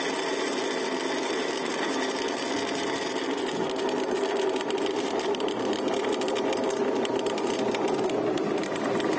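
Pulley wheels of a hand-pulled trail cable car running along its steel cable: a steady whirring, joined about three and a half seconds in by fast rattling clicks.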